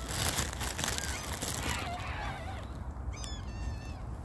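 Short high-pitched calls of Canada geese and gulls, a few scattered calls and then a quick run of them about three seconds in. A brief rush of noise comes in the first second.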